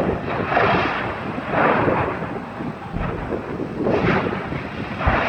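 Roar and rumble of a large fire of compressed-gas cylinders burning at a welding supply yard, rising in surges every second or two, with a short low thud near the end.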